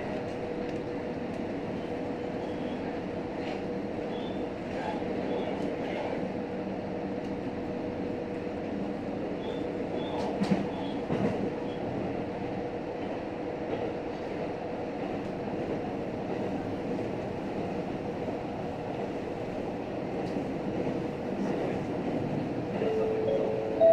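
Cabin running noise of a JR Hokkaido H100 diesel-electric railcar under way: a steady rumble with a held hum, and a couple of sharp clacks about ten seconds in. Near the end a short onboard chime begins.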